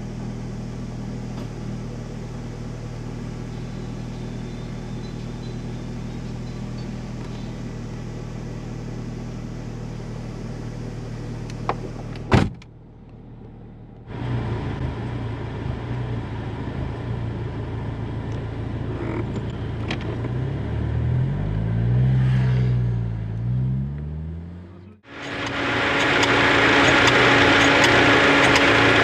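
Alfa Romeo 147 1.6 Twin Spark four-cylinder engine running, steady at first, with a sharp click about twelve seconds in, brief revs that rise and fall later on, and a much louder, harsher sound near the end. The engine has developed an abnormal noise that the owner suspects comes from the air-conditioning compressor, though the timing belt is also a possibility.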